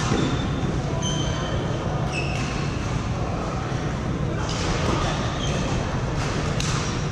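Badminton hall sounds: rackets striking shuttlecocks several times, shoes squeaking briefly on the court floor, and players' voices in the background over a steady low hum.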